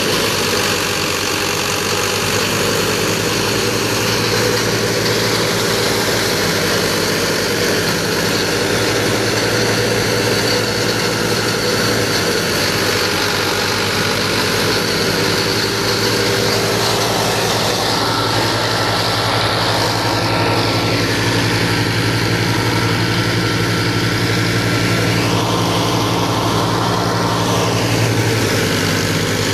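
2010 Al-Ghazi tractor's diesel engine running steadily, driving a threshing machine, with the thresher's constant whirring hiss over the engine's low drone.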